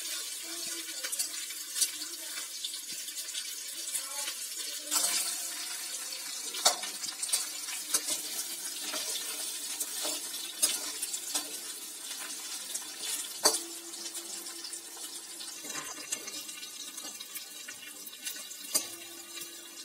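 Boiled potato cubes sizzling steadily as they fry in oil in a stainless steel kadai, with scattered pops and the clink and scrape of a steel slotted spoon stirring them.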